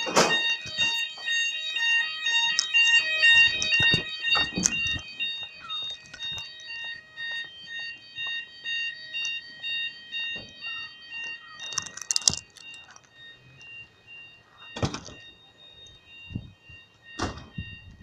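Fire alarm base sounders sounding a pulsing, multi-tone electronic alarm during a weekly test. The alarm is loud at first and grows fainter after about five seconds as the recording moves outdoors. It is broken by several knocks and bumps, the loudest about twelve seconds in.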